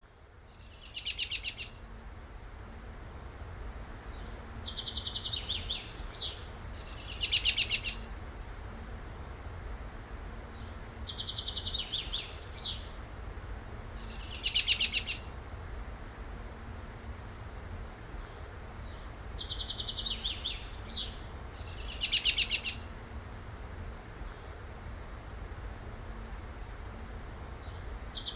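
Nature ambience of birdsong over a steady high insect trill. A short, loud trilled bird call comes about every seven seconds, with falling chirped phrases between them, over a low rumble. The pattern repeats like a loop.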